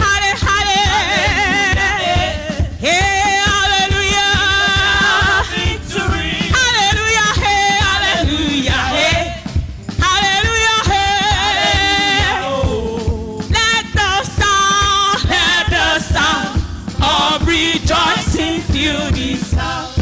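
A woman singing a gospel worship song into a microphone, her voice wavering and ornamented, over accompaniment with a steady beat.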